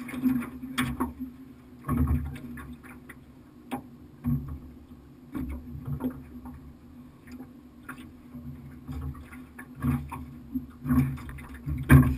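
Small waves slapping against the aluminum hull of a small fishing boat: irregular low knocks roughly once a second.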